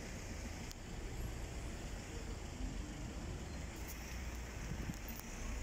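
Steady low rumble of outdoor town background noise, like distant traffic, with a few faint clicks.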